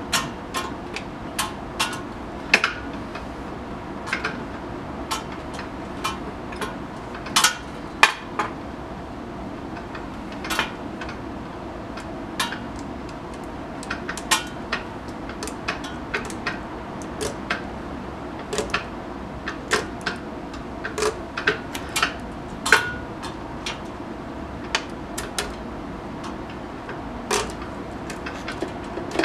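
Irregular metallic clinks and knocks of hand tools and steel parts on a metal chop saw as the new blade is tightened down on its spindle and the saw is reassembled, over a steady background hum.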